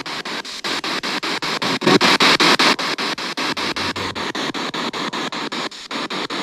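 P-SB7 spirit box sweeping through radio stations: a steady hiss of static chopped into short pulses about six times a second.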